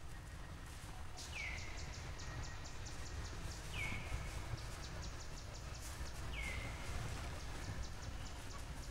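An animal call repeated three times about two and a half seconds apart, each a short falling note followed by a quick run of high, evenly spaced ticks, over a steady low rumble of outdoor background noise.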